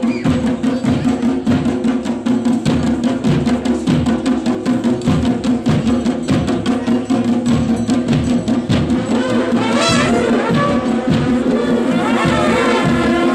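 Himachali procession band playing: drums beat a fast, even rhythm of about four strokes a second under a held droning tone. Long curved brass horns (narsingha) blow rising calls about two-thirds of the way in and again near the end.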